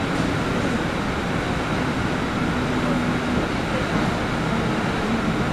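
Interior running noise of an MTR Ma On Shan Line C-Train moving past a station platform: a steady rumble of wheels and running gear through the car.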